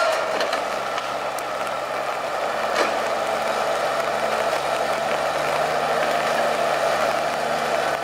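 Valmet 840.3 forwarder's diesel engine running steadily as the log-loaded machine drives across the cutting. There are a couple of short knocks, one at the very start and one about three seconds in.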